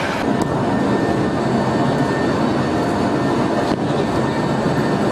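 Steady, loud industrial rumble, heavy-machinery noise of the kind at a steel plant's slag dump, with a couple of faint clicks.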